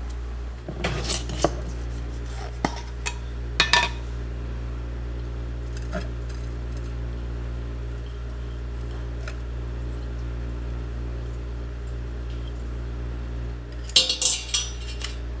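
Kitchen clinks and knocks as a glass mason jar of dried raspberry leaf and a stainless steel tea infuser are handled over a kitchen scale and saucepan. There are a few sharp knocks in the first four seconds, faint ticks in the middle, and a burst of metallic clatter about fourteen seconds in, all over a steady low hum.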